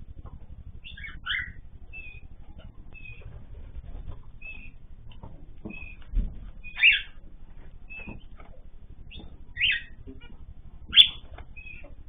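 Cage birds calling: short high peeps repeat under a second apart, with four or five louder chirps cutting through.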